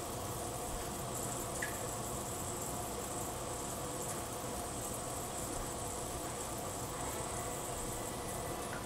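Pressure cooker heating on the stove before it comes up to pressure: a steady hiss with a thin high whine over it.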